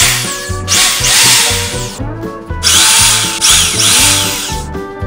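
A 500 W corded electric impact drill boring into plywood, run in two bursts of about one and a half and two seconds with a short pause between, its motor pitch wavering under load. Background music plays throughout.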